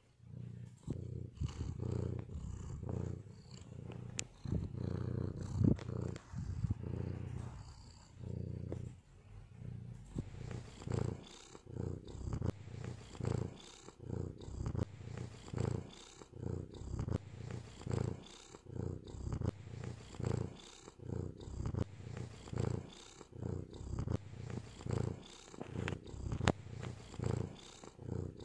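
Domestic cat purring, a low rumble that swells and eases in a regular rhythm, more continuous in the first few seconds and then in steady separate pulses.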